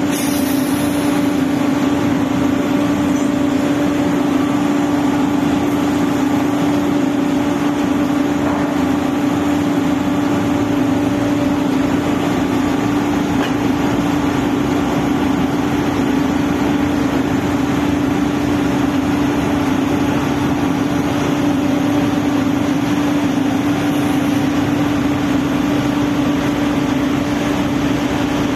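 Drilling rig machinery running: a loud, steady mechanical drone with a strong constant hum.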